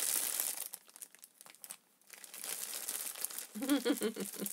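A plastic bag crinkling as it is handled, in two stretches: one that stops within the first second and another that starts about two seconds in.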